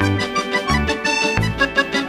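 Upbeat background music with a steady beat, bass and a keyboard melody.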